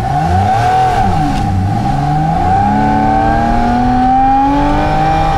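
Car engine revving: its pitch dips and rises, then climbs steadily for the last few seconds as the car accelerates.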